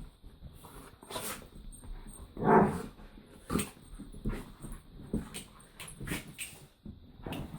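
Dogs vocalising in short bursts throughout, with one loud bark about two and a half seconds in.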